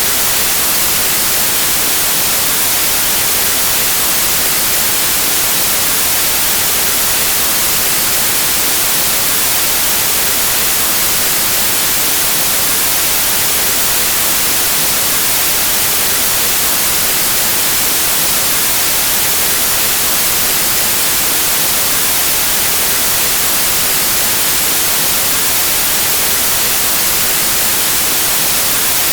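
Pure white noise: steady, unvarying static hiss, strongest in the high frequencies, with no change throughout.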